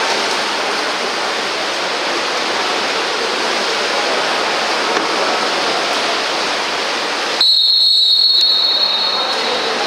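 Steady noisy wash of pool water and splashing during a water polo game. About seven seconds in it is cut across by one long, shrill referee's whistle blast lasting about two seconds.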